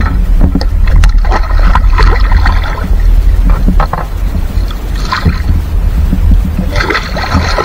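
Wind rumbling on the microphone over water sloshing against the side of a boat, with a few short splashes and knocks.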